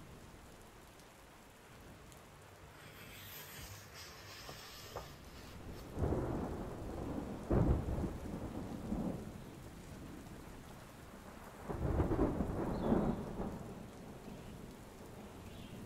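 Steady rain with two rolls of thunder, the first about six seconds in and the second about twelve seconds in.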